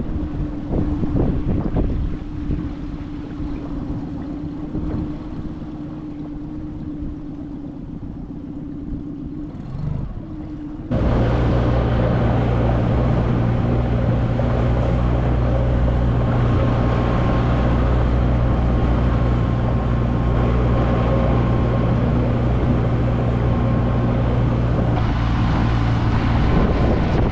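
A small motor hums steadily with one even tone. About eleven seconds in it cuts abruptly to a much louder Tohatsu 20 hp outboard running steadily at speed, pushing the inflatable boat across the lake, with wind buffeting the microphone.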